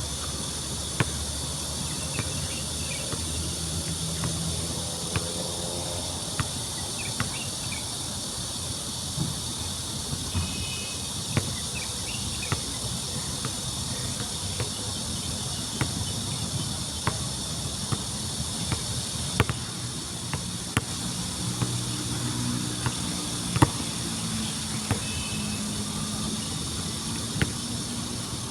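Steady, high-pitched chorus of insects with a few faint bird chirps. Over it, sharp thuds of a basketball bouncing come irregularly, about every second or two.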